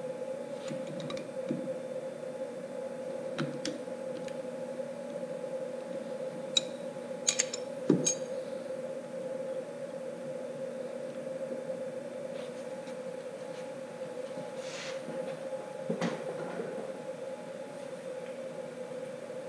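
Sharp metallic clicks and clinks of hand work on a CNC router's spindle and collet, most of them about six to eight seconds in and one more at sixteen seconds, over a steady machine hum.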